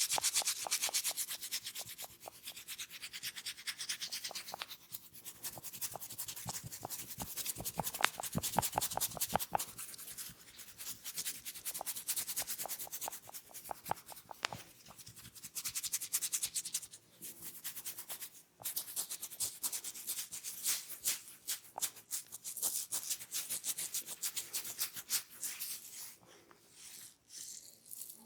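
Fingers rubbing and scratching through hair and over the scalp in an ASMR head massage, a steady run of quick crackly strokes that grow heavier for a couple of seconds about eight seconds in.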